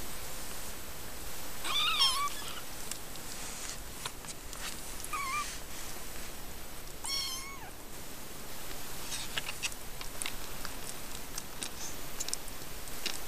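Three-week-old Siamese kittens mewing: three short, high-pitched mews spread over several seconds, with faint rustling and small clicks between them.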